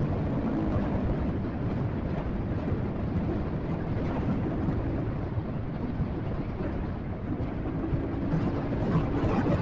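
Motorcycle running at riding speed, a steady engine note under heavy wind rush on the microphone.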